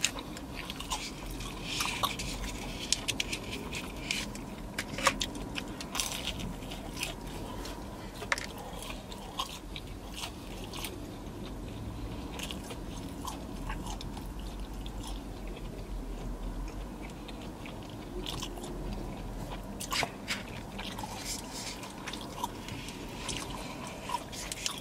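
Close-up chewing and biting of chicken, with irregular crunches and small clicks scattered throughout, over a faint low steady hum.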